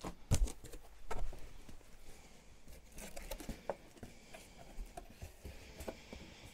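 Cardboard shipping box being handled and opened by hand: a few sharp knocks as the box is moved, then the scraping and rustling of its flaps being folded back.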